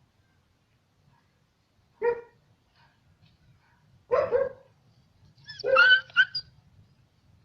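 Dog barking, three separate calls spaced about two seconds apart, the last one louder and broken in two.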